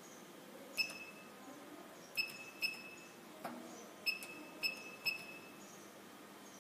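Parcel locker keypad beeping as keys are pressed: six short high beeps at uneven intervals, with one dull tap about midway.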